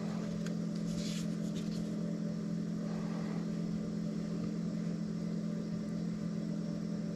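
A steady low electrical hum, like a fan or appliance running, is the loudest sound. Over it come a few faint scraping strokes of a knife edge across a whetstone, in the first couple of seconds and again about three seconds in.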